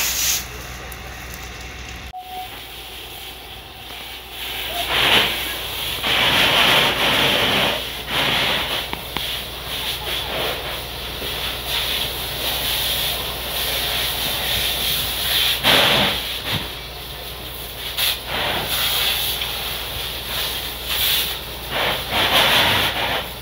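Fire hose spraying water onto a burning building. The loud hiss of the spray cuts off just at the start, then comes back in irregular surges of a second or two.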